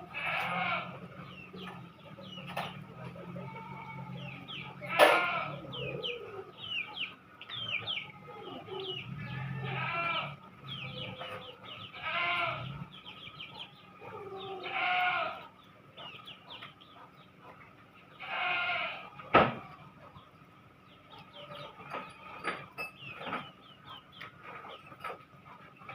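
Farm animals calling: about five drawn-out calls of around a second each, over many short, quick chirps. Two sharp knocks, one about five seconds in and one near twenty seconds.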